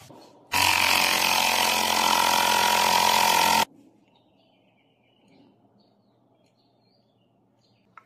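Small electric air pump running loudly and steadily for about three seconds, starting about half a second in and cutting off suddenly. It is pressurising the brew chamber of a homemade pneumatic espresso maker.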